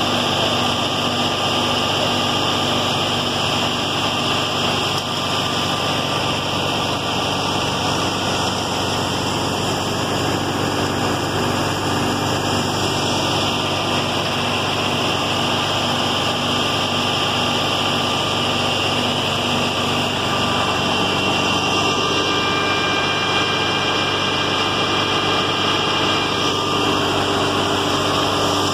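A wheat thresher driven off the PTO shaft of a New Holland Fiat 640 tractor, running steadily while threshing, together with the tractor's diesel engine working under the load. It is one continuous, even machine drone with steady tones and no breaks.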